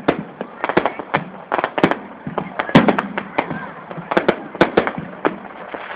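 Fireworks display: a rapid, irregular string of sharp cracks and bangs as aerial shells and crackling stars burst, several a second.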